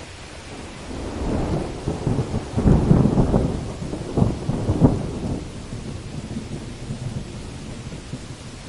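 Heavy rain falling steadily while a long peal of thunder rolls in about a second in, grows loud with a few sharp cracks in the middle, then rumbles away.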